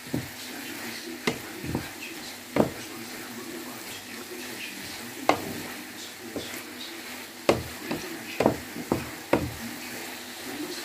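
Chicken and vegetables sizzling in a frying pan as a wooden spatula stirs them, the spatula knocking against the pan about ten times at irregular intervals.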